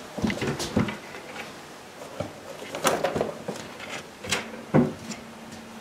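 Scattered knocks and clicks of a wardrobe door being handled, with rustling as a rolled-up mat is taken out; the loudest knocks come a little past the middle.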